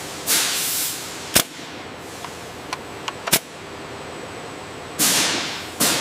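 Two loud hissing bursts, one just after the start and one about five seconds in, each fading out within a second. Between them come two sharp clicks and a few fainter ticks.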